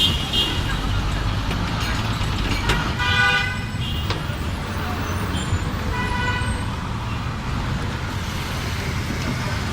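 Busy road traffic rumbling steadily, with vehicle horns sounding twice, about three and six seconds in.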